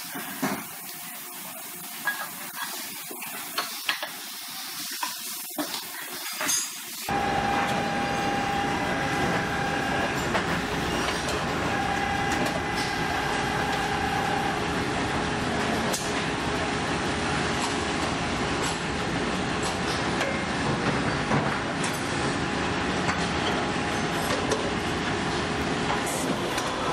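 Engine-plant factory floor noise: a hiss of compressed air with scattered clinks of metal parts, then from about seven seconds in a denser, steady machinery din with a faint whine.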